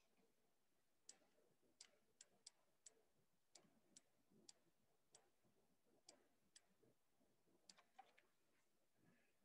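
Faint, sharp taps of a pen stylus on a tablet or touchscreen while writing digits, about fifteen clicks at uneven intervals.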